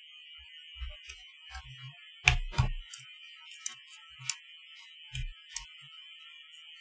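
Irregular clicks of a computer keyboard and mouse, with two louder clacks in quick succession a little after two seconds in. A faint, steady high-pitched whine sits beneath them.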